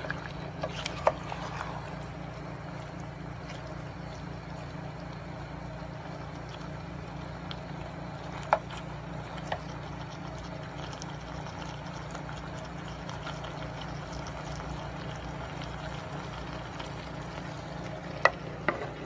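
Stir-fry of beef skin and vegetables bubbling and sizzling in a wok over a steady low hum, with a few sharp clicks of a utensil against the pan.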